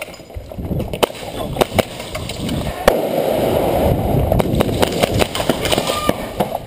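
Airsoft guns firing single shots at irregular intervals, each a sharp crack, over a loud rushing, rustling noise that swells in the middle.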